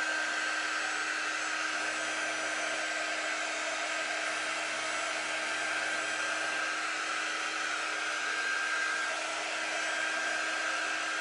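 Handheld craft heat gun running steadily, blowing hot air with a steady motor hum under the rush of air, warming freshly applied dark wax.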